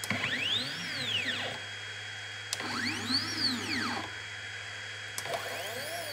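CNC 3018 Pro's stepper motors jogging the spindle and V-bit into position: three separate moves, each a whine that rises in pitch as the axis speeds up and falls as it slows to a stop, the last one lower.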